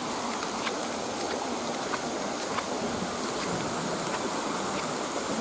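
Steady hiss of insects buzzing, with scattered light crackles of footsteps on dry bamboo leaves.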